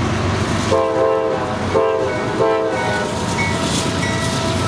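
Norfolk Southern diesel locomotives' air horn sounding three short blasts about a second in, over the steady running of the lead engines and the noise of the passing double-stack intermodal train.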